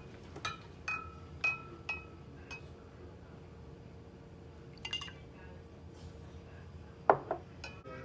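Metal ladle clinking against glass as milk is ladled from a glass jar into a drinking glass. Several light ringing clinks come in the first two and a half seconds, another cluster about five seconds in, and a few taps near the end.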